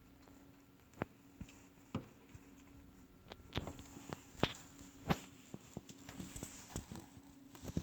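Irregular sharp clicks and taps, a few at first and then more often after about three seconds in, over a faint steady hum.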